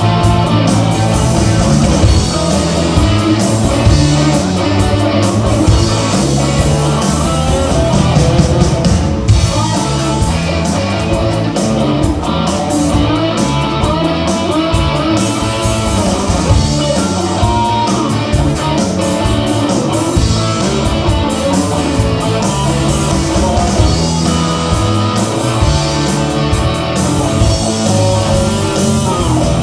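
Live rock band playing a rock and roll number: electric guitars, bass guitar and a drum kit.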